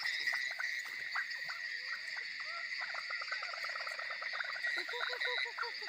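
A chorus of frogs calling in quick, repeated short notes, growing denser about halfway through, over a steady high trill of crickets.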